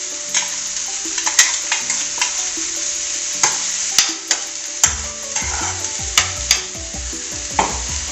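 Mushrooms sizzling in a pan while a spoon stirs them, with a steady frying hiss and sharp clicks of the spoon knocking against the pan, and heavier scraping and handling from about halfway through.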